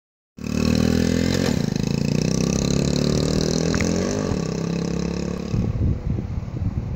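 A 1970 Honda CT70 Trail's small single-cylinder four-stroke engine running as the minibike rides away, its pitch rising and dipping a few times as it speeds up. The engine note fades about five and a half seconds in, leaving wind noise on the microphone.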